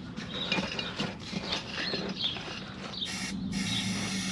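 Air being pumped into a riding mower tire's inner tube: a steady hiss over a low steady hum, with scattered clicks and rattles.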